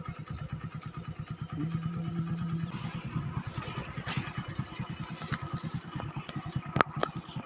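Motorcycle engine running with a fast, even putter. A short steady low tone sounds about two seconds in, and a few sharp clicks come near the end.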